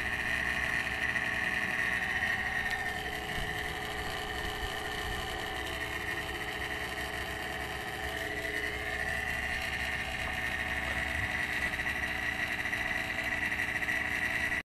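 Refrigerator's inverter compressor running steadily just after its R600a refrigerant charge, a low hum with a constant high whine over it.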